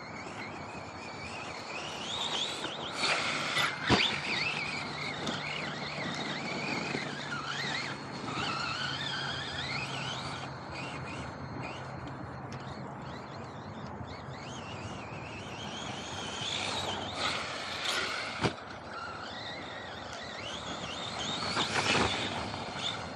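MT8 radio-controlled monster truck driving on sandy ground, its motor whining up and down in pitch as it speeds up and slows. Two sharp knocks, about four seconds in and again about eighteen seconds in, from the truck landing or striking something.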